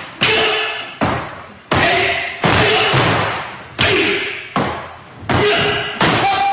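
Wooden naginata and wooden sword (bokuto) clashing in a Katori Shinto-ryu kata: about eight sharp clacks in quick succession, each ringing out in the hall, with shouted kiai.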